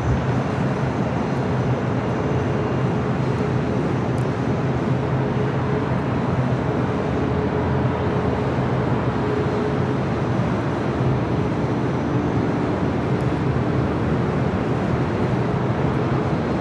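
Steady airport rumble of jet engines running at low power on taxiing airliners, with a faint steady whine over it.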